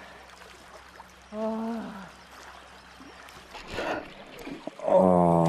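Steady rush of river water, with a man's short hum about a second and a half in and a loud drawn-out vocal sound near the end.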